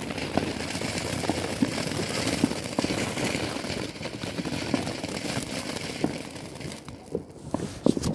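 Ground fountain firework spraying sparks with a steady hiss and scattered crackles, fading out about seven seconds in. A few sharp pops follow near the end.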